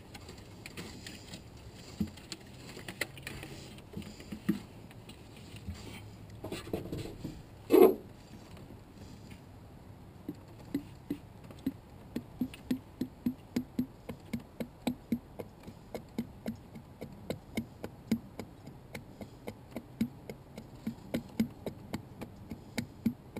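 Engine oil glugging out of a tipped 5-gallon plastic pail into a plastic funnel: after a loud knock about eight seconds in, a steady run of glugs, two to three a second, as air gulps back into the pail.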